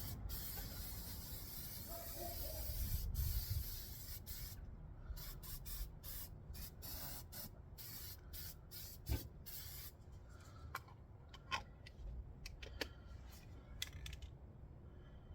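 Aerosol spray can of rust paint spraying: one long spray lasting about four seconds, then a string of short bursts, followed by a few faint taps.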